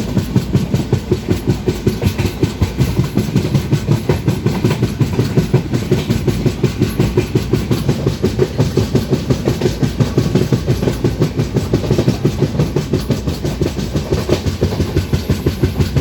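Indian Railways express train's wheels running over rail joints at speed, a rapid, even clickety-clack of about four beats a second over a steady low rumble of the running train.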